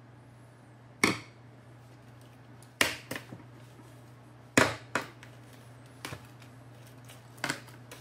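Hard computer parts being handled: a series of sharp clicks and knocks, some in quick pairs, over a faint steady hum.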